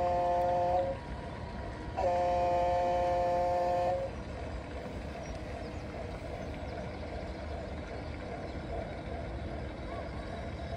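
Horn of an RC model tugboat (Smit Nederland) sounded in two long blasts, each a steady chord of several pitches. The first ends about a second in, and the second starts about two seconds in and lasts about two seconds.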